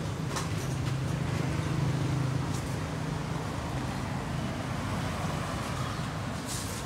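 An engine running steadily at a constant speed, a low drone that swells slightly about two seconds in.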